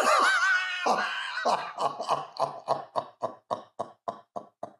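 A man laughing hard. A loud, high-pitched wavering squeal in the first second gives way to a long run of breathy 'ha' pulses, about five a second, that slowly fade.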